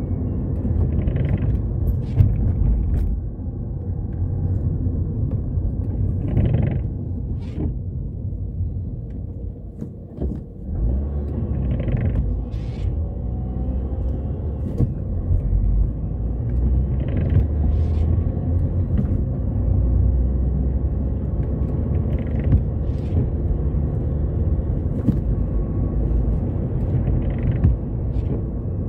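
Inside a moving car: steady engine and tyre road noise. The windscreen wipers are on intermittent, giving a short swish about every five seconds.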